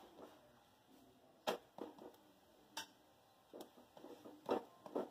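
Steel spatula pressing and turning a buckwheat-flour paratha on an iron tawa: about six faint, short taps and scrapes, irregularly spaced.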